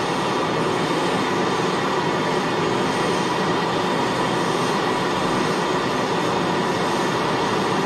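Propane brazing torch burning with a steady rushing hiss, its flame heating aluminium sheet up to the temperature at which the low-temperature aluminium brazing wire will flow.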